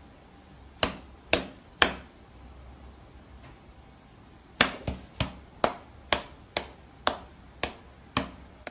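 Light slaps of a cat's paw meeting a person's palm in high fives: three about a second in, then a quicker run of about ten, roughly two a second, from midway on.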